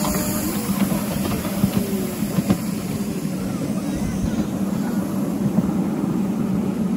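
Miniature ride-on train running along its track: a steady rumble and hum with scattered faint clicks and knocks.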